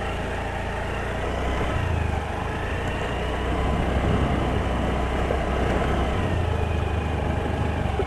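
Honda Activa 125 scooter's single-cylinder four-stroke engine running steadily at low speed while the scooter rolls over a rough dirt track.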